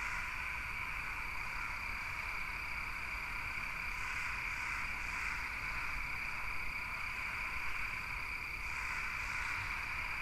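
A steady, high-pitched chirring chorus of calling animals, with soft hissing swells about four seconds in and again near nine seconds.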